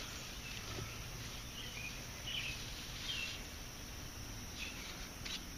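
Faint outdoor ambience with a few short, scattered bird chirps and a single sharp click near the end.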